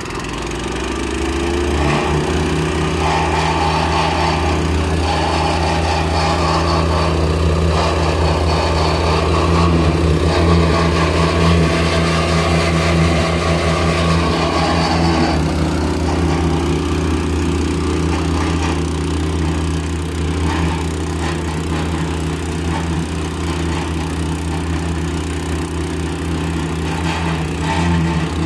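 Engine of a single-drum road roller opened up on the throttle: it rises over the first couple of seconds, then runs steadily at high revs.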